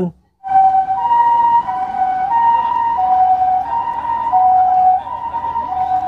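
Japanese ambulance siren sounding its two-tone hi-lo call, one pitch alternating with a slightly higher one about every two-thirds of a second, starting about half a second in.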